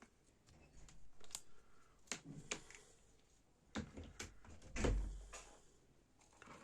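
Scattered clicks, taps and knocks from small objects being handled, with the loudest knock, a dull thud, about five seconds in.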